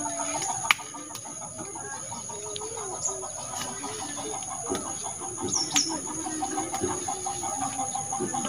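Chickens clucking on and off, over a steady high-pitched whine, with a sharp snap about a second in.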